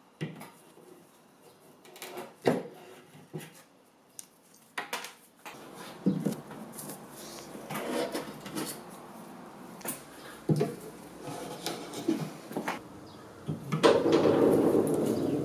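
Steel end-cutting pincers pulling old nails out of wood: a few sharp clicks as the jaws bite on the nail heads, then a busier run of scraping and knocking as the nails are levered out, loudest near the end.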